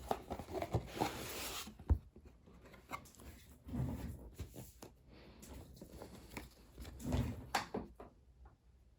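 Objects being handled up close in a small room: irregular rustling, clicks and knocks, with a sharp thump about two seconds in.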